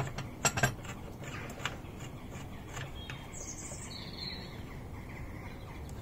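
Workshop handling noises from the gudgeon-pin tool on the engine: two sharp metallic clicks about half a second in, then a few faint taps. A bird chirps briefly in the background from about three seconds in.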